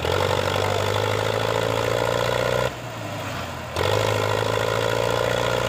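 Tractor diesel engine running hard under heavy load while pulling an overloaded trolley. Its steady, loud note drops away for about a second near the middle, then comes back.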